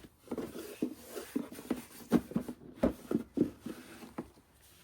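Pokémon booster packs and box contents being handled and set down: a quick, irregular run of soft taps and foil-and-cardboard rustles.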